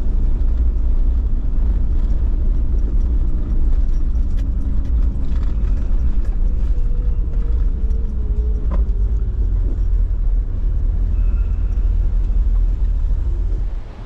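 Toyota LandCruiser Troop Carrier driving along a dirt bush track: a steady low engine and tyre rumble with a few light knocks.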